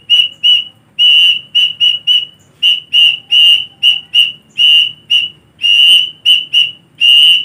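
Sawangan angkrik, a Javanese pigeon whistle made of a small cluster of tubes, blown by mouth in a string of short, high whistle notes, about three a second, some held a little longer. It is being tested for the shrill, cricket-like sound it is set up to give.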